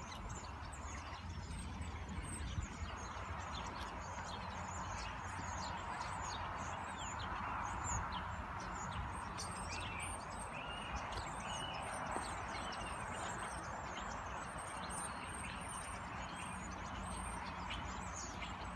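Many small birds chirping and twittering in quick, short calls over a steady low rumble.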